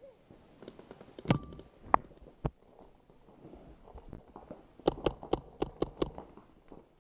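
Paintball marker, a Planet Eclipse Ego LV1, firing a quick string of about seven shots, roughly six a second, about five seconds in. Three single sharp cracks come earlier.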